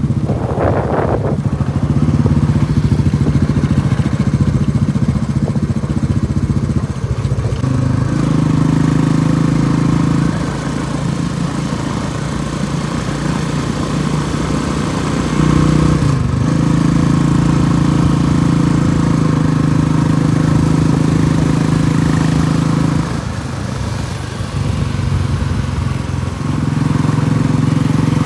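Motorcycle engine running while riding, its note stepping up and down every few seconds.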